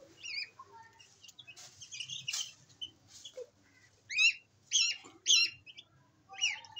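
Goslings peeping: a run of faint, high chirps, then three loud peeps in quick succession about four seconds in and another near the end.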